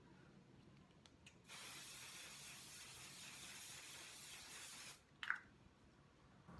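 Makeup primer spray misted onto the face: a continuous hiss of about three and a half seconds, starting about a second and a half in. A short sharp sound follows about five seconds in.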